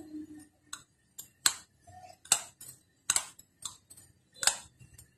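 Metal spoon clinking and scraping against a ceramic bowl while mixing a dry, crumbly rasmalai ball dough of powdered mix, egg and cooking oil: a string of sharp clicks at uneven intervals.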